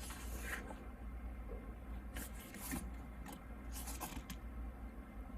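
Pages of a photobook being handled and turned, a few brief rustles of paper.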